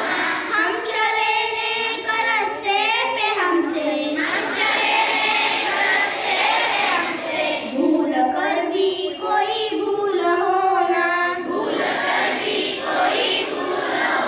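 Schoolchildren singing a Hindi prayer together in long, held sung lines, a girl's voice on a microphone leading.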